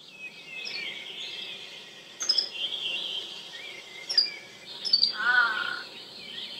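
Tropical rainforest ambience: birds chirping and calling over a steady background of forest noise, with a few sharp calls and a short run of quick repeated notes about five seconds in.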